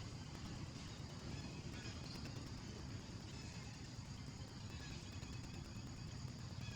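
Steady outdoor background noise: a low rumble with a fainter hiss, no distinct events.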